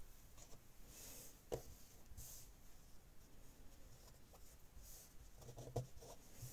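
Faint rustling of cotton fabric strips being handled and laid on a terry towel, with two soft taps.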